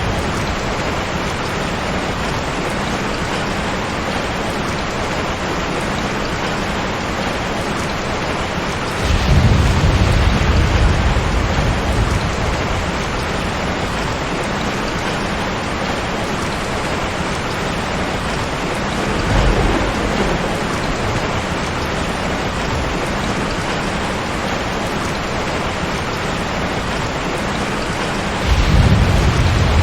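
Steady, dense rain hiss with deep rolls of thunder: a long one about nine seconds in, a short one around twenty seconds, and another starting near the end.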